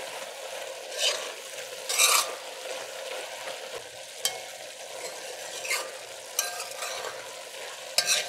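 Chopped pumpkin frying in an aluminium pot with a steady sizzle, while a metal spoon stirs it and scrapes against the pot in a string of sharp strokes, the loudest about two seconds in and near the end.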